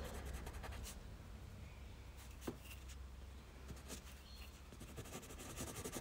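Prismacolor coloured pencil scratching faintly across textured Canson Mi-Teintes paper in quick, short strokes, with a few light ticks of the lead on the paper, the clearest about two and a half seconds in.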